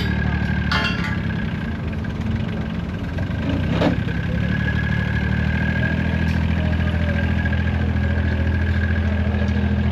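Large engine idling steadily, with a thin steady whine above it and one sharp knock about four seconds in.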